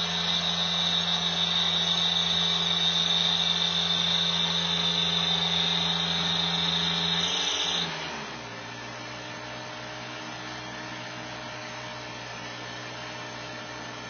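New Holland skid steer's diesel engine held at high throttle with a steady high whine over it as the machine strains, stuck in deep mud, then dropping back to a low idle about eight seconds in.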